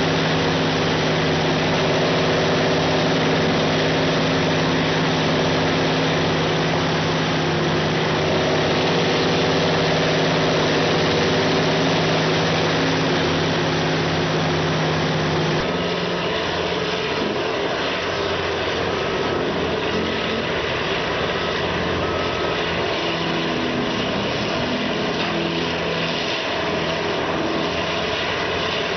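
Diamond Z DZT8000TKT track-mounted tub grinder running while it grinds wood waste, its diesel engine holding a steady pitch. About sixteen seconds in, the sound changes abruptly to a rougher, noisier rumble without the steady tone.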